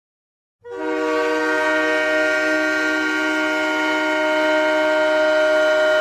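Ice hockey goal horn sounding one long, steady blast of several tones held together. It starts about half a second in.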